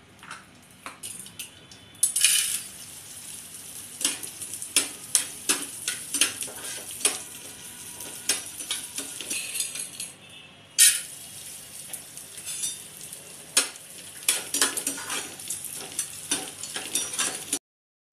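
Edible gum (gond) frying in hot ghee, sizzling and crackling with many sharp pops, with louder bursts of sizzle about two seconds in and again near eleven seconds. Utensils clink against the pans between them.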